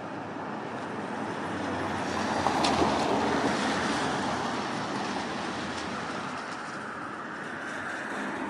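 A vehicle passing along a rain-wet street. A rushing noise swells to its loudest about three seconds in, with a sharp click near the peak, then slowly fades.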